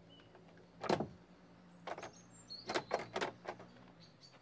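One sharp knock about a second in, then a quick run of lighter knocks and clicks, over a faint steady hum.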